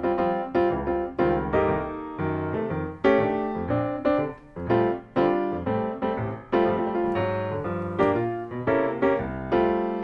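Background music: a piano plays a melody of struck, decaying notes.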